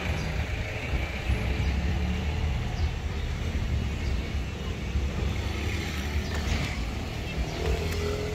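Steady low vehicle rumble.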